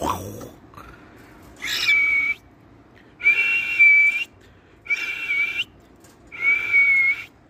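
A caged pet bird at its nest box giving four breathy, whistling hisses, evenly spaced about a second and a half apart.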